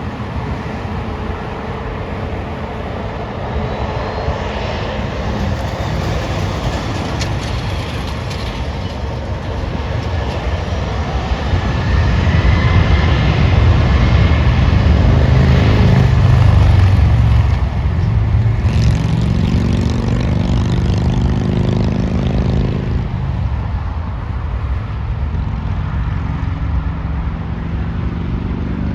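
Jet airliner passing by, its engine noise building to a peak about midway, then the engine tones falling in pitch as it moves away.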